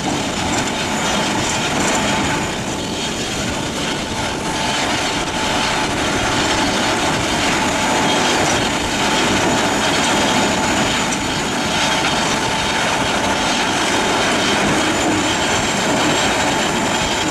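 Morbark HT1684 Predator 500 hp tracked slow-speed shredder running as an excavator grab feeds it stumps and waste wood. It makes a loud, steady, dense mechanical din with a thin high whine over it.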